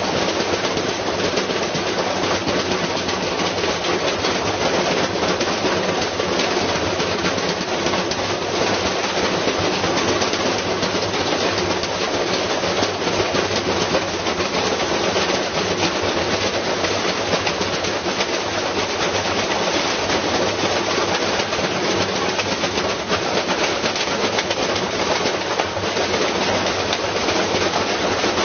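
Washing machine running with a brick tumbling in its drum: a continuous rattling clatter of rapid knocks over a low steady hum.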